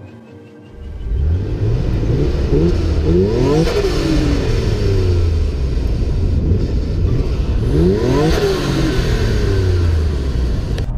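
Nissan Skyline R34 GT-R's RB26DETT twin-turbo straight-six, fitted with N1 turbos and a Blitz downpipe and Kakimoto exhaust, running and revved twice, the pitch climbing and falling back each time, about three and eight seconds in.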